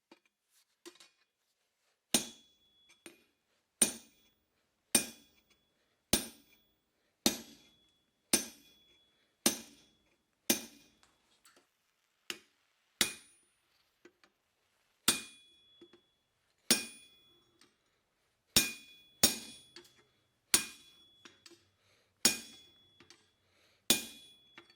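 Blacksmith's hammer striking steel at the anvil, about one blow a second with a few short pauses, each blow followed by a brief metallic ring.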